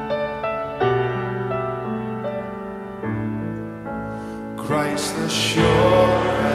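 Worship hymn accompaniment: piano playing slow chords, then a fuller, louder band sound comes in about two-thirds of the way through.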